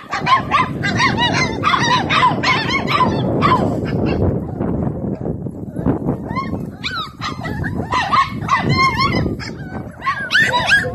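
A litter of puppies yipping and whimpering, many short high-pitched cries overlapping, with a brief lull about halfway through. A steady rustling runs underneath.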